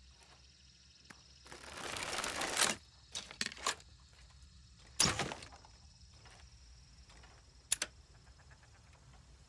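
Crossbow being handled: a scraping noise swells for about a second and stops abruptly, then three quick clicks, one sharp snap about five seconds in, and a lighter click near the end.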